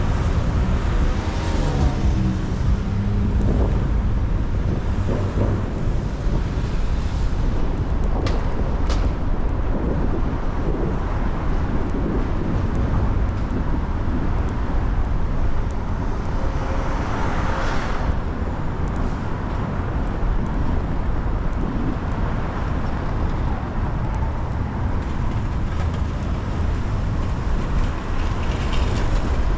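City street traffic on wet roads: a steady low rumble of engines and tyres on rain-soaked pavement, with a vehicle swishing past about eighteen seconds in.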